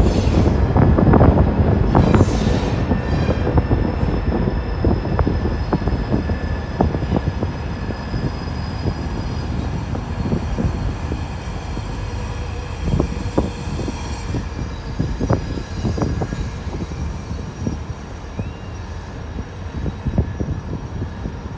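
Low rumble of a freight train led by a diesel locomotive, heard through an open car window, with many short knocks and rattles over it. Loudest in the first few seconds, then slowly fading.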